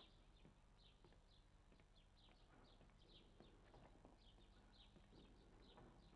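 Faint, frequent high chirps of small birds over near silence.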